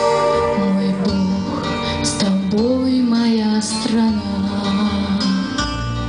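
A woman singing into a microphone over an instrumental accompaniment; her voice glides between held notes partway through.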